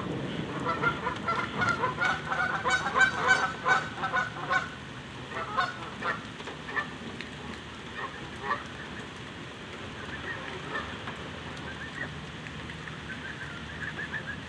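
A flock of Canada geese honking. A dense, loud run of overlapping honks starts about a second in and lasts a few seconds, then thins to scattered single honks and fainter calls, with the flock stirred up by two juveniles sparring.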